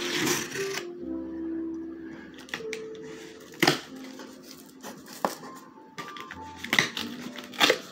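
Utility knife slicing the packing tape on a cardboard box, with the flaps rustling and a few sharp cardboard clicks, the loudest near the middle and end. Background music with sustained notes plays throughout.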